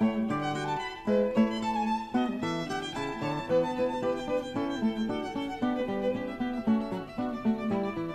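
Instrumental background music led by a violin, playing a melody of short notes that change several times a second.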